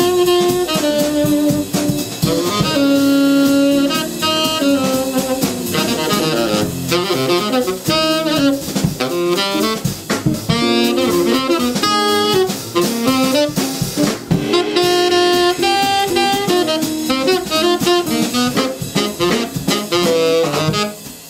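Small jazz combo playing: a tenor saxophone leads with quick runs of short notes over upright bass and a drum kit.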